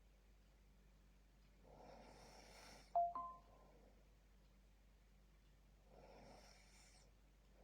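A sleeping person snoring faintly, two drawn-out snoring breaths about four seconds apart. A short two-note chime, stepping up in pitch, sounds about three seconds in and is the loudest sound.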